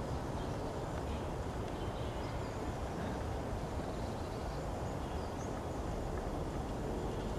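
Steady low outdoor background rumble with no distinct events, and faint high bird chirps now and then.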